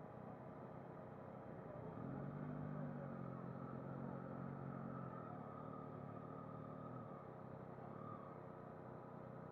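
Motorcycle engines running at low revs in a slow-moving queue, the ridden Yamaha MT-09 SP's inline-triple among them. A louder engine note swells about two seconds in, holds for several seconds and eases back near the end.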